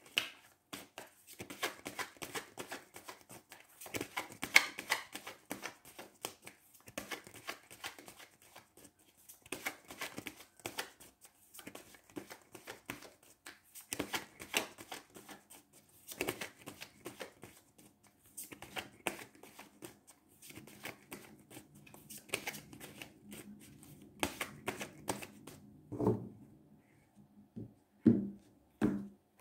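A deck of tarot cards being shuffled by hand: irregular runs of quick papery clicks, pausing and restarting, with a few soft thuds near the end.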